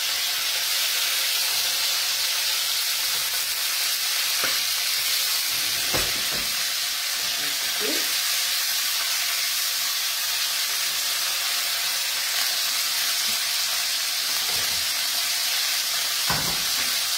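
Pancetta-wrapped chicken rolls sizzling steadily as they brown in a hot pot, with a few short knocks against the pot now and then.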